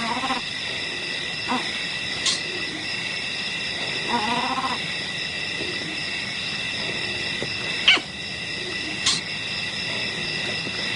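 Leopard giving two short, low calls, one at the start and a longer one about four seconds in, over a steady high-pitched chirring, with a few sharp clicks, the loudest about eight seconds in.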